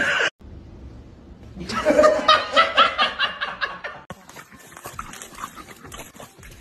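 A person laughing in a quick run of loud bursts for about two seconds, then quieter background noise.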